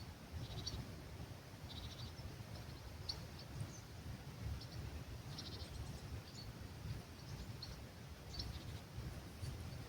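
Small birds giving scattered faint high chirps and a few short buzzy trills, over a steady low rumble of breeze.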